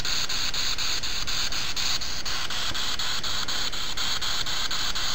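Spirit Box radio sweeping through stations: steady static hiss, chopped by a regular click about six times a second as it scans.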